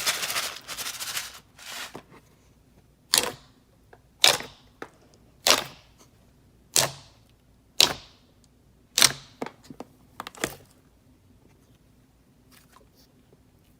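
Slime being squished and folded: a dense crackle until about a second and a half in, then about seven sharp pops roughly a second apart.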